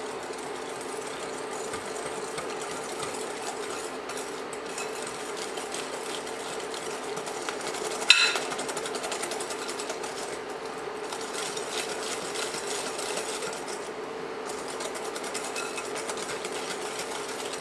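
Wire whisk beating egg yolks, sugar and cornstarch in a glass bowl: an even, quick scraping and ticking of the wires against the glass, with one sharper knock about eight seconds in.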